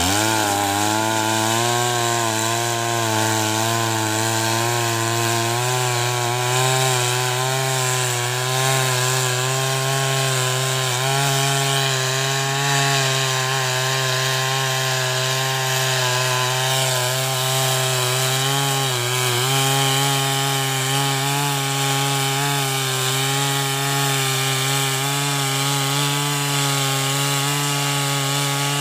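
Stihl two-stroke chainsaw revved up and running at high speed while cutting into a log. Its pitch holds fairly steady, wavering as the chain bites into the wood, with a brief dip about two-thirds of the way through.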